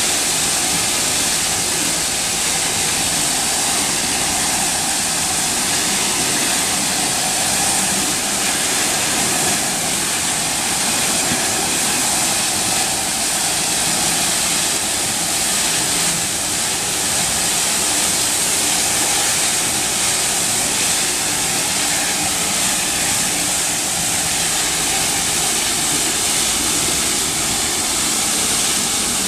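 SX-12 spinning tile-cleaning tool running at 400 PSI, its water jets spraying under the shroud while vacuum suction pulls the dirty water back up the hose: a steady, loud rushing hiss.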